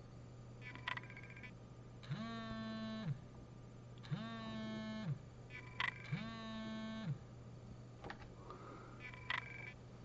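Three electric buzzes, each about a second long and a second apart, sliding up in pitch as each starts and down as it stops, with a few faint clicks in between.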